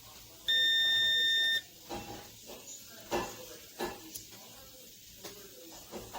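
A digital multimeter's buzzer gives one loud, steady, high beep about a second long: its high-voltage warning. Light handling knocks and clicks follow.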